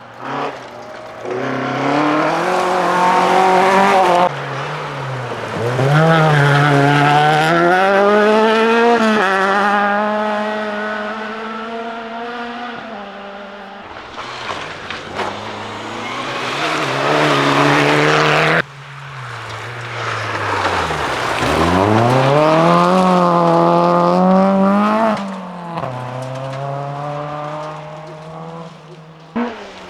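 Rally cars passing one after another at full throttle, engines revving hard and climbing in pitch through quick gear changes, then falling away. The sound switches abruptly from one car to the next a few times.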